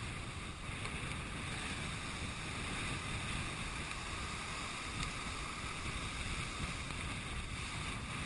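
Heavy hurricane-driven surf breaking and churning against rocks, mixed with strong wind on the microphone: a steady, even rush with no distinct breaks.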